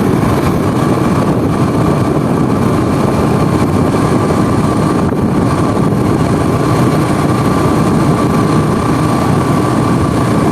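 Riding noise from a two-wheeler on the road: wind rushing over the microphone over the running engine, loud and steady, with a faint steady whine throughout.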